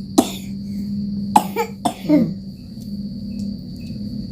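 A young boy coughing, about four sharp coughs in quick succession in the first half: the cough of a child sick with a cough and fever.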